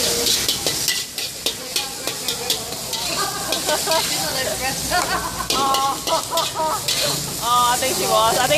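Char kway teow frying in a steel wok, a steady sizzle with a metal spatula scraping and clanking against the wok in quick repeated strokes.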